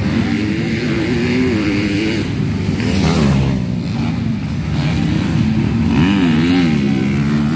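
Several motocross bike engines racing, their pitch rising and falling again and again as the riders open and close the throttle.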